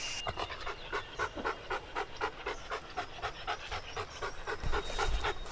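A dog panting rapidly and steadily, about four breaths a second.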